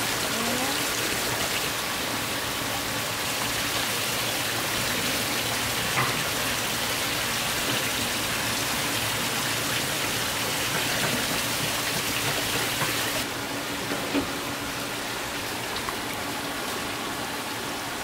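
Seawater running from hoses and pipes into plastic basins and tanks of live flounder, a steady splashing hiss that turns duller about two-thirds of the way through.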